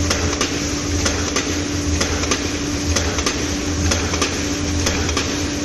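Machinery running steadily: a low pulsing hum under a steady tone, with sharp clicks at about three a second.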